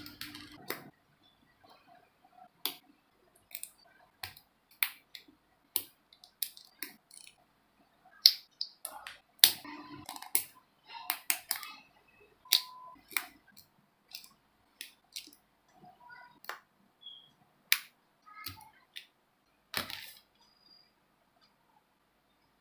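Irregular sharp clicks and snaps of hard plastic from a Bandai Master Grade Gunpla kit: side-cutter nippers snipping parts off a clear plastic runner, and plastic parts being pressed and snapped together. A few of the clicks ring briefly.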